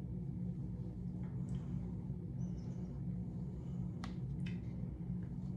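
Steady low electrical-sounding room hum, with faint rustles and a few small clicks as hands gather long hair back into a bun. A faint, brief high squeak comes about halfway through.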